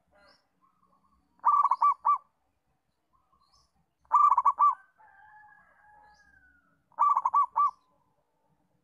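Zebra dove cooing: three bouts of quick, stuttering coos, each a rapid run of about four notes, spaced a little under three seconds apart. Between the second and third bouts a fainter drawn-out whistle sounds.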